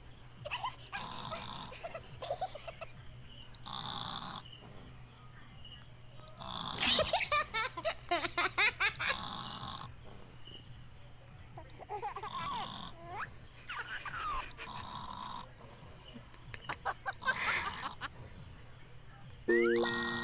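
A person snoring in slow, rhythmic breaths, a few seconds apart, some of them with a fluttering rattle. Crickets chirr steadily in the background. A short tone sounds near the end.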